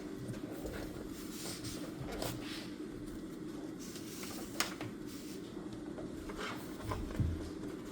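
Pen writing on paper at a desk: soft, irregular scratching strokes over a steady low room hum, with a sharp click about halfway through and a dull thump near the end.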